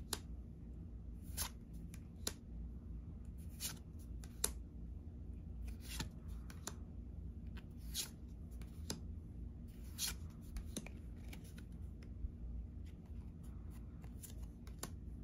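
Weiss Schwarz trading cards flipped through by hand, each card slid from the back of a small stack to the front: a short papery swish about every two seconds, with light taps between.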